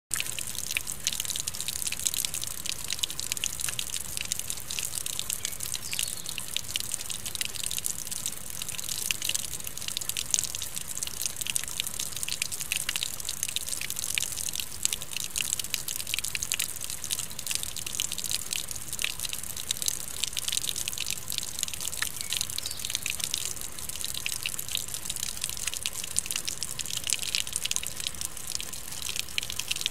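Steady soaking rain, a dense patter of drops, with runoff pouring from a metal scupper in a stone wall and splashing onto rocks below.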